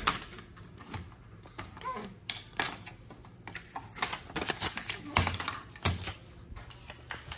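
Keys jangling on a ring and clicking in the lock of a small metal mailbox, its little door rattling open: a run of sharp metallic clicks and clatters, busiest a little past the middle.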